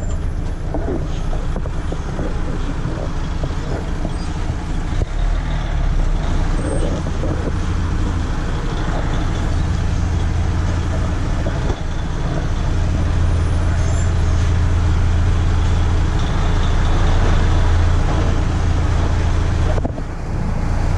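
Truck driving on the road: a steady low engine hum with road and cab noise, growing a little louder partway through, with a short drop just before the end.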